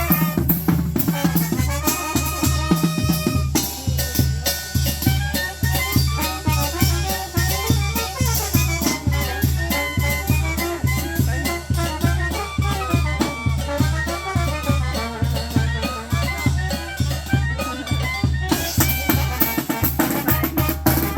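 Tamborazo band playing: wind instruments carry the melody over a steady beat from the tambora bass drum and snare drum.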